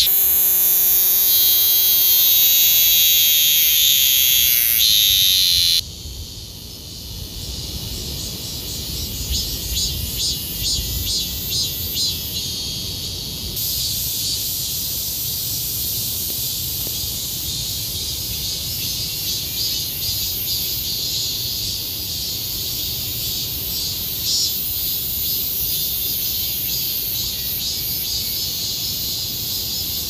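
Cicada calling: a loud, shrill buzz with a downward-gliding tone near the start. It cuts off suddenly about six seconds in, leaving a softer, pulsing high buzz from cicadas farther off.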